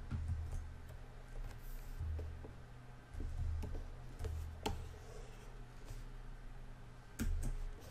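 Faint, scattered clicks and taps of computer input, keys and a pen or mouse, over a low room hum.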